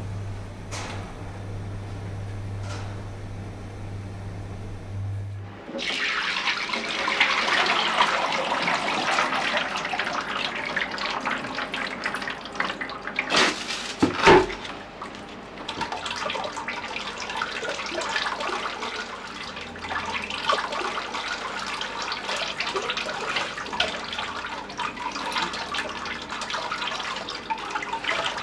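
A low steady hum for about the first five seconds, then liquid clay slip pouring from a bucket into a sieve, splashing and trickling through the mesh into a bowl below. A single knock about halfway through.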